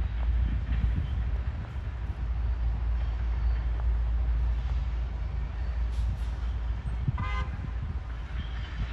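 Freight locomotive air horn giving one short blast about seven seconds in, heard at a distance over a steady low rumble.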